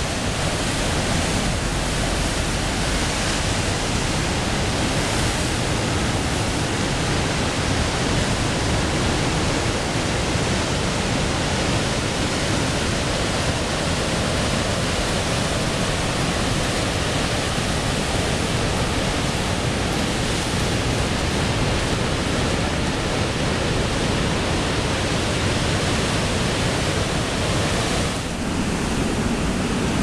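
Big ocean surf breaking over a rocky shore at high tide, a steady, dense wash of crashing waves and churning whitewater that dips briefly near the end.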